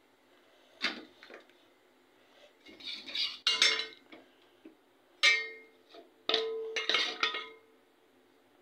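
A steel ladle knocking and scraping against a steel bowl of chapati batter: several short bursts of clinks, some leaving the bowl ringing for a moment.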